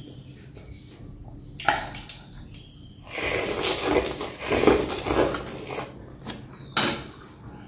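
A person slurping rice vermicelli noodles up from a bowl of soup in a long noisy stretch through the middle, with a few sharp clicks of utensils against a glass bowl before and after.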